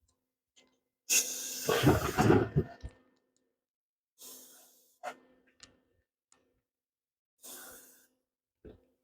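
Aerosol spray paint can hissing in short spurts: one longer spray about a second in, then two shorter ones, with a few sharp clicks between them.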